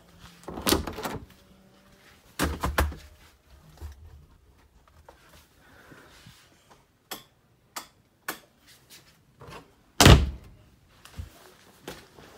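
Several dull thuds and knocks, the loudest about ten seconds in, with a few short sharp clicks between them.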